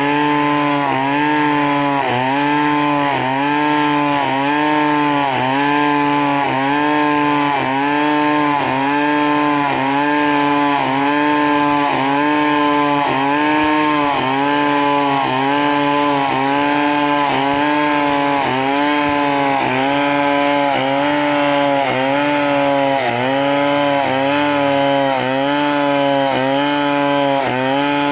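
Large two-stroke chainsaw (New West 070 with a STIHL bar) running at full throttle under load, ripping a log lengthwise along the grain. The engine pitch dips and recovers in a steady rhythm about once a second as the chain bites into the wood.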